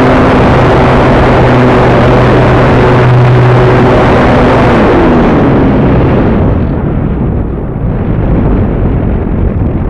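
Electric motor and propeller of an AcroMaster RC plane heard from an onboard camera, a steady drone under loud wind rush on the microphone. About five seconds in, the motor pitch slides down and fades as it is throttled back, leaving only the wind rush.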